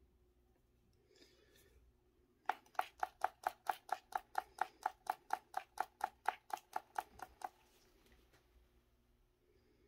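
A container of flock tapped rapidly to sprinkle it onto glue: an even run of about two dozen sharp knocks, about five a second, starting a couple of seconds in and stopping after about five seconds. A faint rustle comes shortly before the tapping.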